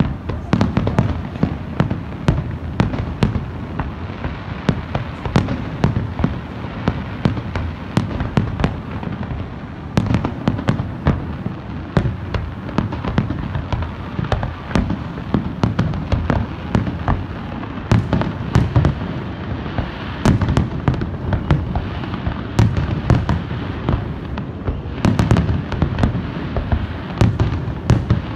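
Fireworks display: a continuous barrage of aerial shell bursts, with many sharp bangs and crackles over a steady low rumble.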